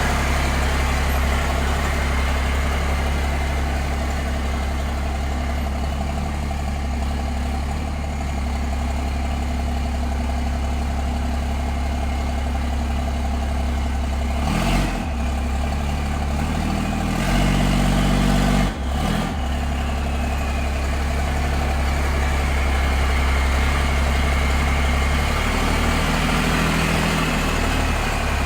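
Pickup truck engine idling and running at low speed, steady throughout, with the engine note shifting briefly about halfway through.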